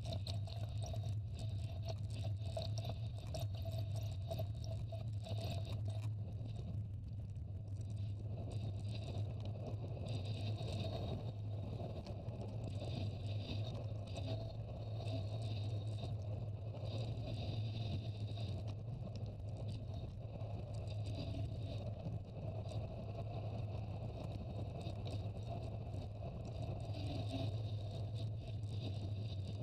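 Wind rushing over the microphone of a camera riding on a bicycle, with mountain-bike tyres rolling on asphalt, as a steady noise with a strong low rumble.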